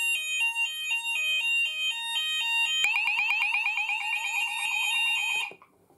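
Fire alarm sounders in alarm after a manual call point test, sounding a two-tone alternating tone that changes about three seconds in to a fast repeating sweep. The alarm cuts off suddenly near the end.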